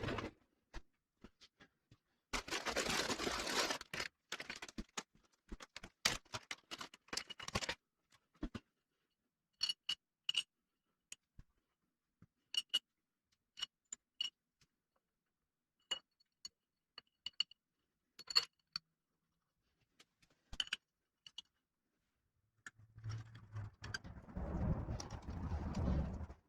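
Hand tools and metal engine parts being handled: scattered sharp metallic clinks, some with a brief ring, and two stretches of rustling and scraping, one a few seconds in and one near the end.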